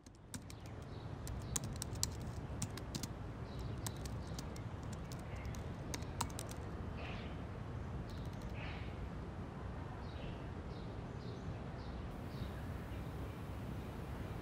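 Computer keyboard typing: a quick run of key clicks that stops about six and a half seconds in. After that, birds chirp now and then over a steady low background rumble.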